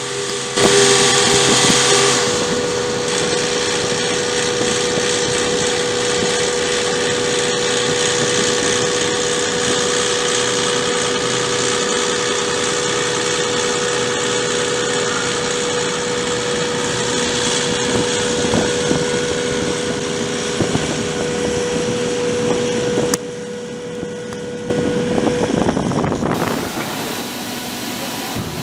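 Machinery running steadily with a constant whine, changing abruptly several times near the end.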